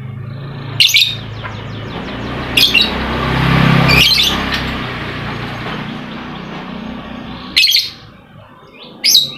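Lovebird giving short, sharp, high chirps, five of them spaced a second or more apart, over a steady low hum. A noisy rush swells and fades around the middle.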